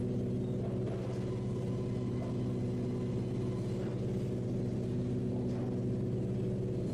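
Steady hum of sawmill machinery running, its tones typical of electric motors, with a few faint knocks.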